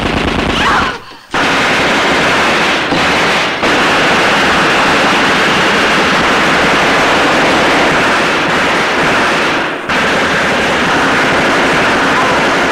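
Thompson submachine gun firing long, continuous bursts, the shots running together into a loud rattle. There is a short break about a second in and a brief pause near ten seconds.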